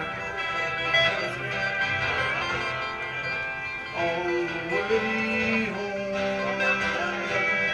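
A group of musicians playing a tune together on acoustic guitars and other instruments, with long held melody notes over strummed chords.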